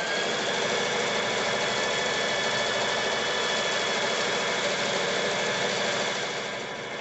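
Brother BB370 sewing machine running fast and steady under the foot pedal while free-motion quilting on a frame, with a high steady whine over the rapid needle stroke. Near the end it slows to a lower speed.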